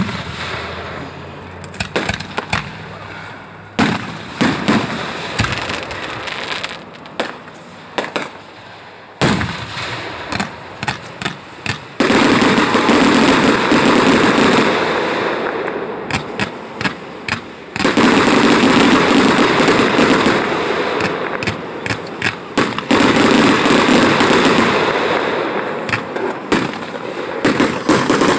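Fireworks going off: a sharp bang at the start, then rapid pops and crackles, with three long stretches of dense, continuous crackling in the second half.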